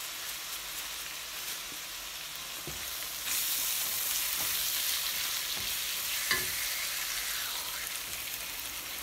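Onion and spice masala sizzling in hot oil in a nonstick wok while it is stirred with a silicone spatula. The sizzle grows louder about three seconds in, with a few light knocks of the spatula against the pan.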